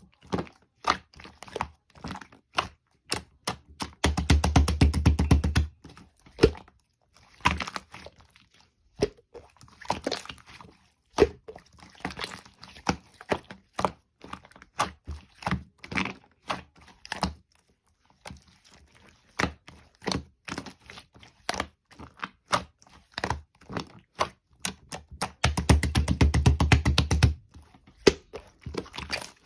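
Close-up handling sounds: irregular clicks, knocks and crackles, with two stretches of about two seconds of rapid, dense rattling, one about four seconds in and one near the end.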